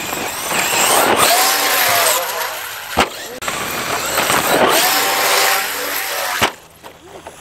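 Electric RC truck's motor and gears whining as it speeds up and slows down in two runs, along with the noise of tyres on loose dirt. There is a sharp knock about three seconds in and another about six and a half seconds in.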